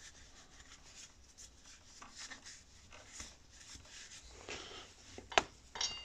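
A rag rubbing and wiping over a motorcycle brake caliper and its pistons during cleaning. Near the end there is a sharp click, then a metal clink with a short ring.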